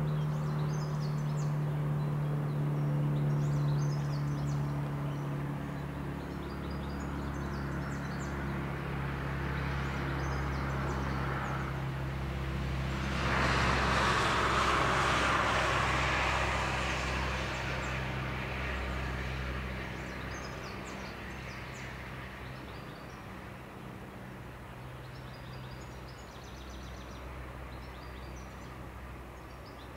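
Inland cargo ships' diesel engines giving a low, steady drone, with birds chirping. About thirteen seconds in, a passing vehicle swells up loudly and fades away over several seconds.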